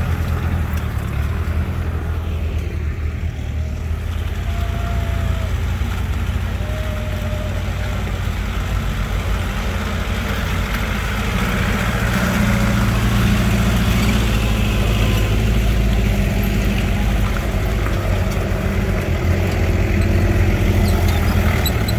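Land Rover off-road vehicle's engine running steadily under way, a little louder from about halfway through.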